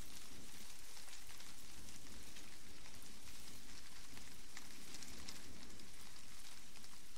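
Steady beach ambience: an even hiss with fine crackling throughout, with no distinct events.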